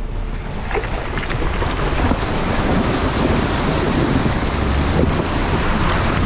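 Water splashing and rushing off the front wheel and along the side of a 4WD driving through a shallow rocky river crossing, heard from a microphone mounted outside the vehicle, with wind buffeting it. The splashing swells about a second in and stays loud.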